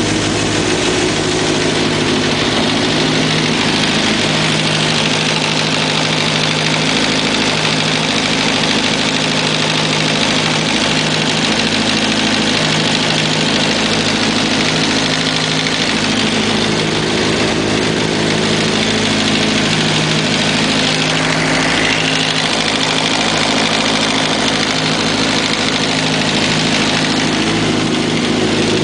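Kawasaki ZX-11's inline-four engine idling steadily, carrying a noise the owner finds weird and wants identified.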